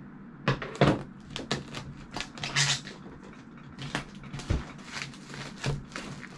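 Cardboard box of a paintball loader being handled and pried open by hand: a run of knocks and clicks, with a short rasping scrape of the packaging a little over two seconds in.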